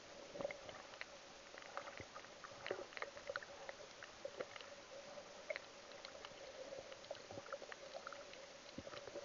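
Faint underwater crackle of a shallow reef pool, picked up by a submerged camera: scattered, irregular little clicks over a steady faint hum.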